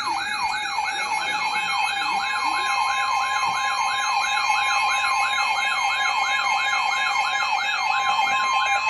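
Electronic alert siren, its pitch sweeping rapidly up and down about three times a second over steady electronic tones, sounding ahead of an Emergency Alert System severe thunderstorm warning.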